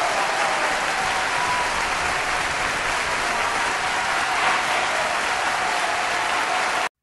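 Audience applauding steadily, a dense even clatter of many hands that cuts off abruptly near the end.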